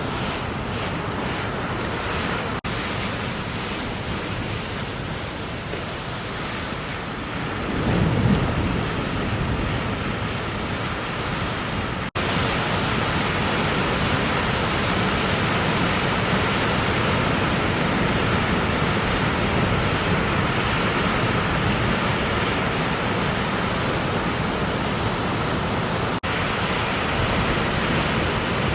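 Ocean surf breaking, with wind noise on the microphone; a louder low rumble comes about eight seconds in, and the surf noise steps up and stays louder after an abrupt cut about twelve seconds in.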